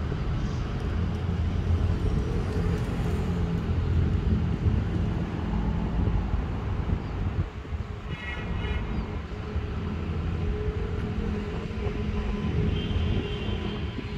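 Toyota Fortuner SUV's engine running as it drives slowly round a corner and pulls up, a steady low rumble. A brief high-pitched tone sounds about eight seconds in.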